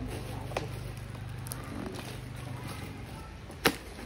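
Electric fan motor humming steadily, the hum fading out more than halfway through, with a few light clicks and one sharp, loud click near the end.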